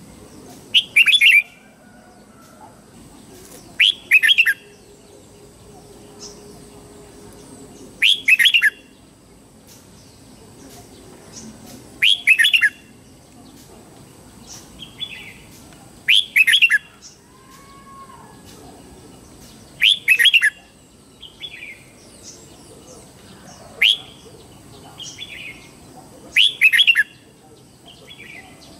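Red-whiskered bulbul singing its morning song: a short, loud phrase of quick whistled notes about every four seconds, with softer single calls in between.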